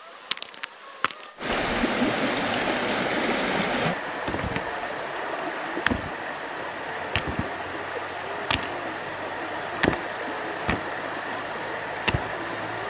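River water running over rocks, coming in about a second and a half in. Sharp knocks of river stones striking one another sound every second or so as they are picked up and dropped into a basket.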